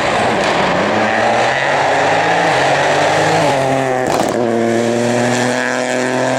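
Rally car engine running hard, its note shifting pitch in steps and then holding steady, with a sharp crack about four seconds in.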